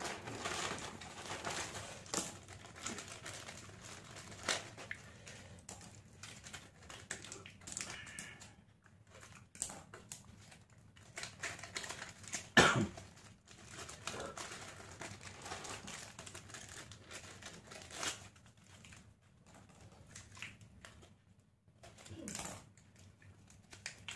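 Plastic medicine pouches and paper medicine packets crinkling and rustling as they are handled, with scattered irregular clicks. One sharper knock comes about halfway through.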